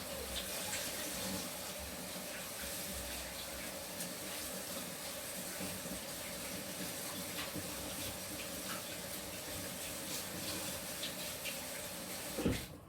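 Water running steadily from a tap, with small clicks of things being handled under it. It stops abruptly near the end with a knock.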